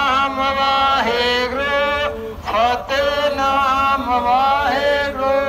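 Sikh devotional kirtan sung by a single voice in long held notes that slide between pitches, with short breaks between phrases.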